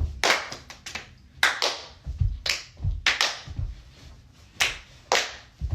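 Hand claps and foot stomps of a step-style dance routine, performed to a count. Sharp claps and deep stomps alternate in an uneven rhythm, about a dozen hits in all, with a stomp right at the start and another near the end.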